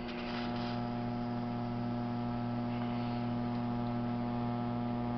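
Electric potter's wheel humming steadily: a low hum of even pitch with a stack of higher overtones, over a faint even hiss.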